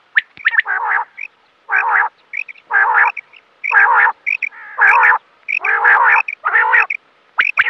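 Quail calling in a repeated series: a call about once a second, each lasting roughly a third of a second with a wavering pitch, with short higher chips in between.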